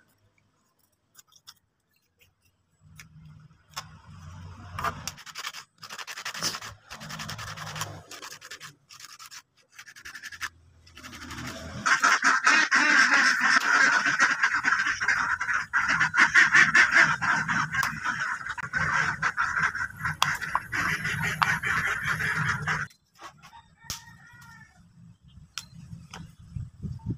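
Orange PVC disc being worked by hand: a few seconds of light intermittent scraping, then about ten seconds of loud, steady back-and-forth sanding against abrasive that stops abruptly.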